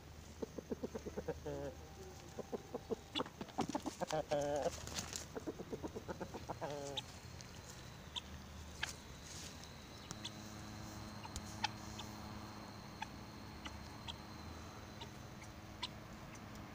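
Chickens clucking in quick runs of short calls over the first half, with a few longer wavering calls. After that it goes quieter, leaving a faint steady hum and scattered small ticks.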